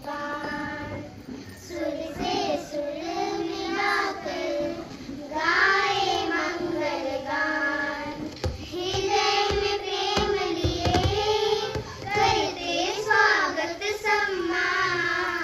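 A child singing a song, with long held notes that bend in pitch.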